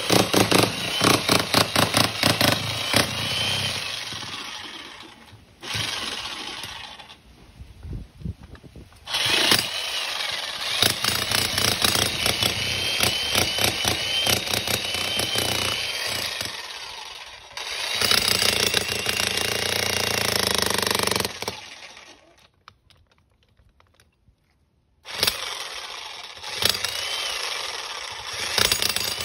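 Fujihama 1240-watt electric jackhammer hammering in a fast, dense rattle of blows. It runs in several bursts, stops and starts, and falls silent for about three seconds past the middle before starting again.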